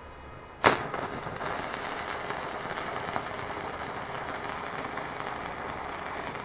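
Electric arc welding on the end cap of a steel motorcycle exhaust silencer: the arc strikes sharply about half a second in, then runs as a steady, dense crackle and hiss.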